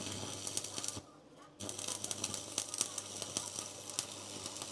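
Electric arc welding: a continuous crackling sizzle over a low steady hum. It breaks off for about half a second around a second in, then the arc is struck again and runs on.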